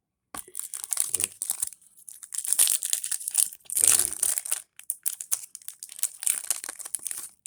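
Foil wrapper of a trading-card booster pack crinkling and being torn open, a dense crackle starting about half a second in and loudest near the middle.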